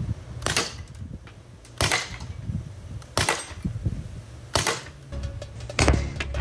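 Mercury Rise TR50 CO2-powered revolver launcher (15-joule version) firing heavy 9mm sabot bullets: four sharp shots about a second and a half apart. Music starts near the end.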